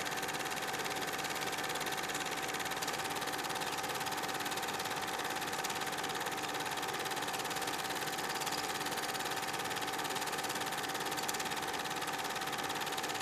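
Film projector running: a steady, rapid mechanical clatter with a constant hum.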